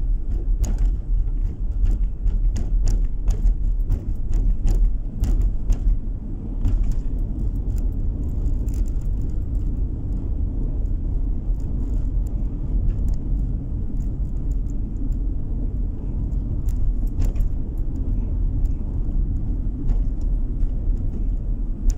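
Road and engine noise of a moving car heard from inside the cabin: a steady low rumble, with frequent small clicks and rattles.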